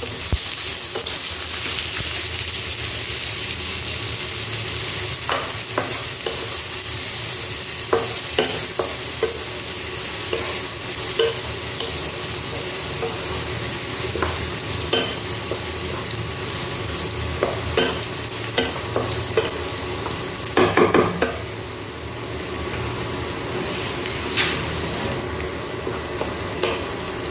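Chopped onion sizzling as it fries in hot oil in a nonstick wok, with a spatula stirring and scraping it and clicking against the pan now and then. A quick run of knocks comes about two-thirds of the way through.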